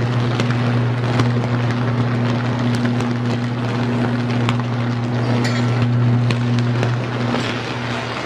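Electric arc burning across a high-voltage disconnect switch: a loud, steady electrical buzz with sharp crackling pops, easing off about seven seconds in as the arc dies down.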